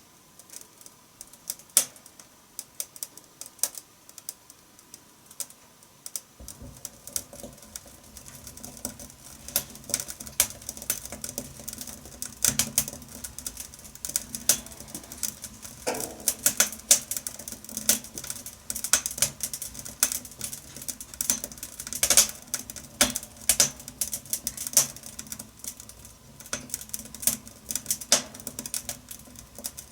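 Wood fire crackling in a wood-burning stove, with sharp irregular pops and snaps. The pops are sparse at first. About six seconds in a low steady rumble of the burning fire comes in, and the crackling grows much denser.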